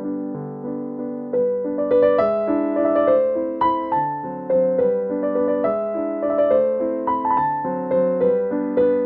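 Background piano music: a gentle melody of single struck notes, each sounding and fading, about two notes a second.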